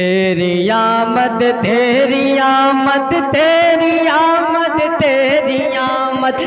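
A man's voice singing a naat in a long, drawn-out melodic line. It starts abruptly and holds notes that bend and waver in ornamental turns.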